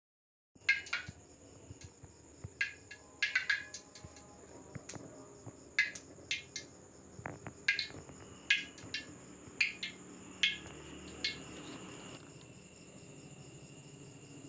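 Crickets chirping: a steady high trill with short, sharp chirps at irregular intervals, starting about half a second in.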